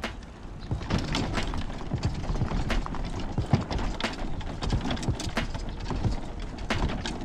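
Vevor kayak dolly rolling a loaded fishing kayak down a grooved concrete boat ramp: a low rumble with irregular clicks, knocks and rattles several times a second.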